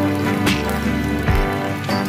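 Background music with a steady beat, over the faint crackling hiss of hot oil deep-frying onion and methi pakodas.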